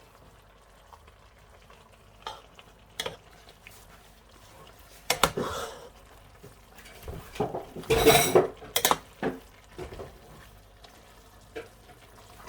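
Spoon stirring vegetable soup in a cooking pot, with scattered scrapes and knocks against the pot. The loudest, busiest stirring comes about eight seconds in.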